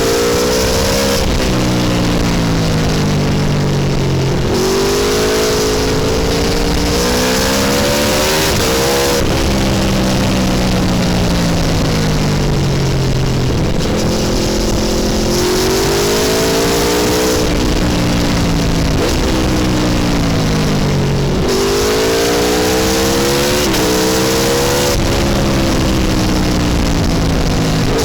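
Aprilia Tuono V4 1100 Factory's V4 engine being ridden, its note climbing and falling over and over through the gears, with sudden pitch jumps at the gear changes.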